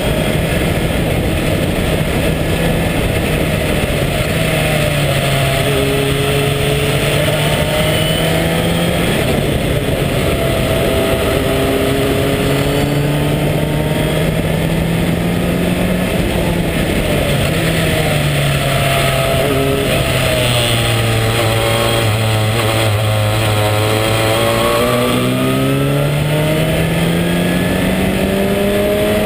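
Race car engine, the 2.0-litre Ford four-cylinder of a March 83S Sports 2000, at full racing effort from the open cockpit: revs climb through the gears and drop again for shifts and corners several times, sitting lower for a few seconds near the end before climbing once more, over steady wind noise.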